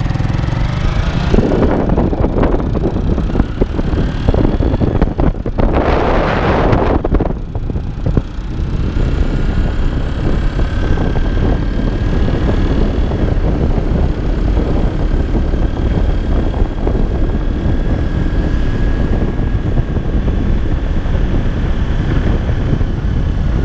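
Wind buffeting the microphone of a camera on a moving motorcycle, a steady low rumble with the motorcycle running underneath and a faint steady whine. A louder rush swells and fades about six seconds in.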